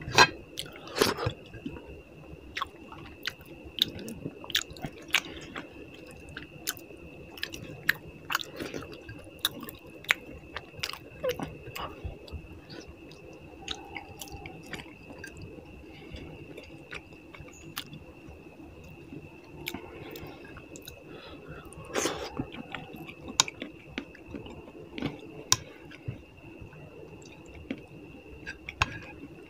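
Close-miked mouth sounds of a person chewing and eating rice with puti fish curry: wet smacks and small clicks at an irregular pace.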